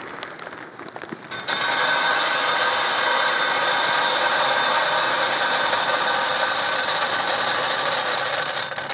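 Wood pellets poured into a pellet grill's hopper: a steady, loud rushing rattle of many small pellets that starts about a second and a half in and stops just before the end.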